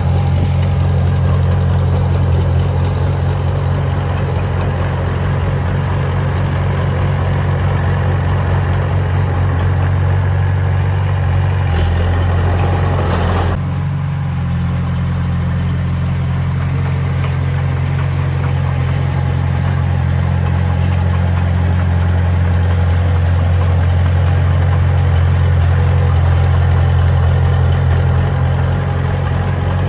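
Diesel engine of a heavy construction machine running steadily, with a brief louder, noisier stretch about twelve seconds in.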